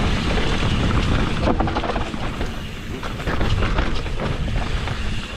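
Wind buffeting the microphone while a mountain bike rolls fast over rough dirt trail, its tyres crunching and the bike clattering over bumps.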